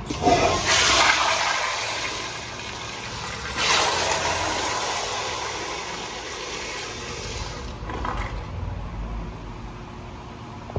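Toto CT705 flushometer toilet flushing: a loud rush of water just after the start, a second surge about three and a half seconds in, then the water gradually dies away by about eight seconds.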